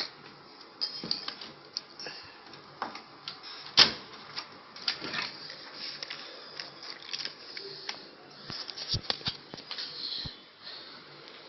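Irregular small clicks and taps of metal parts as a lock cylinder is fitted back into an RFID door lock, with one sharp click about four seconds in the loudest.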